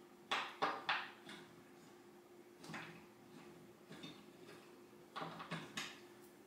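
Short clicks and scrapes of a hand tool tightening the screws on an office chair's frame, coming in irregular little clusters.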